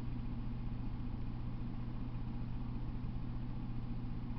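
Steady low hum of idling diesel engines from a stopped freight train, constant in pitch and level.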